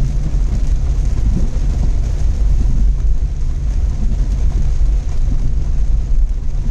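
A car being driven: a steady engine and road rumble with no change in pace.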